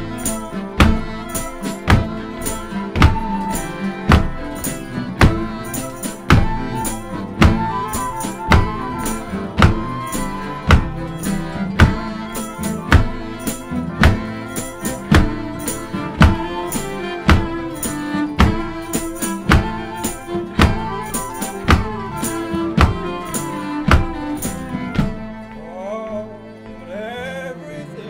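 Acoustic folk band playing an instrumental passage: bowed cello and fiddle with strummed acoustic guitars over a steady beat of percussion hits. The music stops about three seconds before the end.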